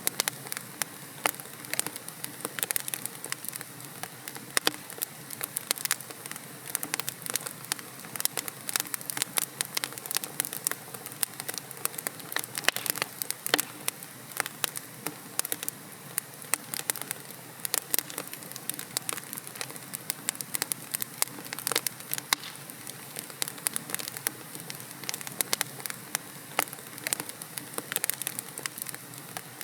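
Wood logs burning in a fireplace: a steady hiss of flame with many irregular sharp crackles and pops.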